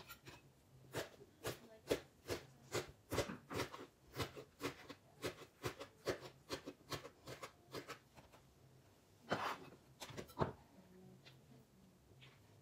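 Kitchen knife chopping drained fermented romaine lettuce on a plastic cutting board: a quick run of sharp knocks, about three a second, beginning about a second in and lasting roughly six seconds, then two more chops a few seconds later.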